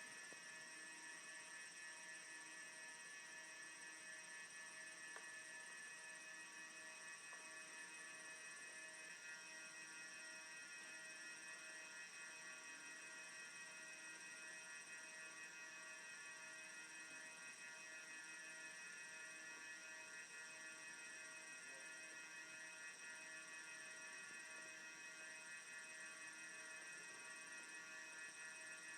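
Near silence with a faint, steady electronic hum made of several high, thin tones.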